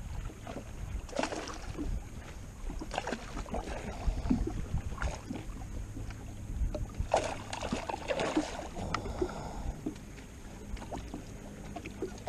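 A hooked fish being brought to the boat and landed: irregular splashes, knocks and handling noises, busiest about three quarters of the way through, over a steady low hum.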